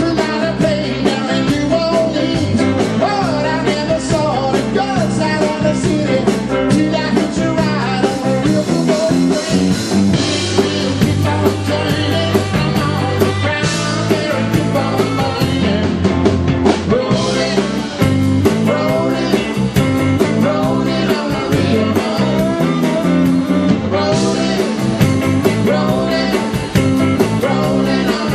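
Live rock band playing: electric guitar, electric bass and drum kit driving a steady beat, with a male lead vocal singing over them.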